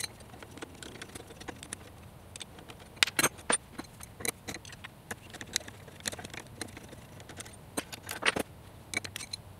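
Metal hex wrench clicking and clinking against bolts as a stepper motor's mounting bolts are unscrewed: scattered small clicks, with louder clusters about three seconds in and again near the end.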